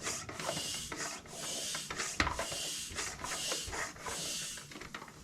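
Bicycle hand pump being worked in about six steady strokes, each stroke a rush of air inflating a punctured fat-tire inner tube.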